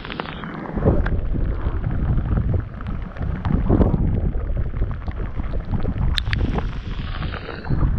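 Strong wind buffeting the microphone: a heavy, uneven rumble that picks up about a second in and gusts on, with faint scattered ticks over it.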